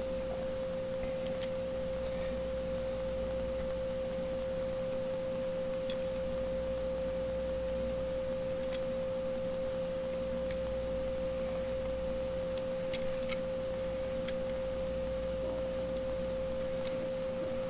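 A steady, unwavering tone held at one pitch, with a low hum beneath it and a few faint clicks.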